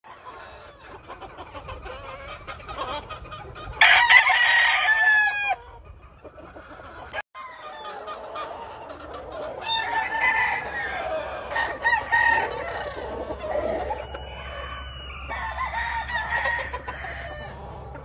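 Game roosters crowing: one loud crow about four seconds in, then further crows and clucks from other cocks through the second half.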